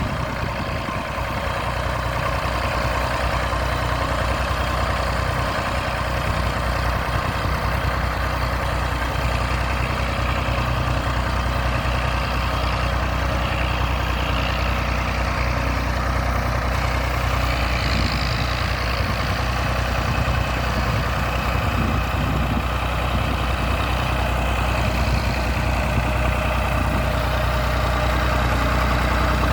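1966 Massey Ferguson 135 tractor's engine running steadily while pulling a plough.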